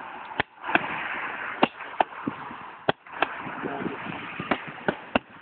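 Gloved punches smacking into handheld focus mitts, sharp smacks coming mostly in quick pairs, about nine in all, over a steady hiss.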